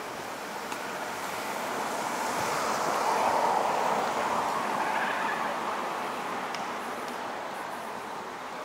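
A car passing on the street: its tyre and engine noise swells to its loudest about three seconds in, then fades away.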